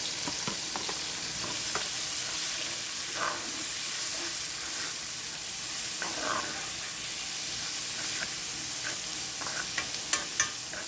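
Garlic sizzling in hot oil in a pan on a high flame, with a utensil stirring and tapping in it; a couple of sharper clicks about ten seconds in.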